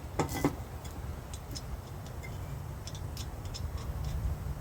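Light metallic clicks and taps of a mower-deck blade spindle being worked up into place under the deck: a quick cluster near the start, then a few scattered faint ticks over a low steady hum.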